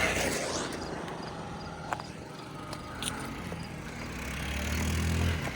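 The GY6 scooter's single-cylinder four-stroke engine running under way. It fades as the scooter moves off, then grows louder as it comes back and drops suddenly near the end. Two faint sharp clicks sound in between.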